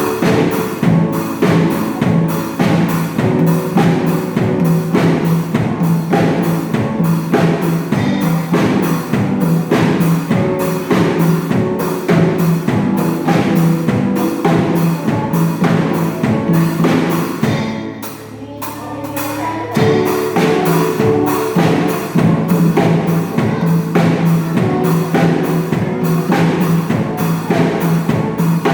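A small band with a drum kit, bass and guitars playing a pop song, instrumental, over a steady drum beat. About two-thirds of the way through, the drums drop out for a couple of seconds before the full band comes back in.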